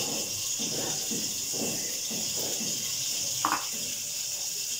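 Pressure cooker on a lit gas burner hissing steadily with steam as it builds pressure. Irregular low fluttering runs under the hiss, and there is a short clink about three and a half seconds in.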